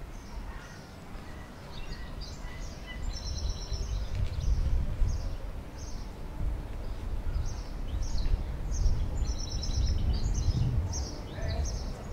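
Small birds chirping and twittering throughout, with quick runs of repeated notes about three seconds in and again near the end, over a low, uneven outdoor rumble.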